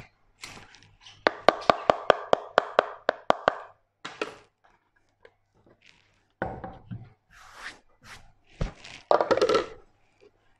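Handling noises from working cladding sheets at a workbench: a quick run of about a dozen sharp taps, about five a second, then scraping and rustling, and a thud near the end as a sheet is set down on the bench.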